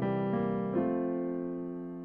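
Piano playing a hymn introduction: a few chords struck in the first second, the last one held and slowly dying away.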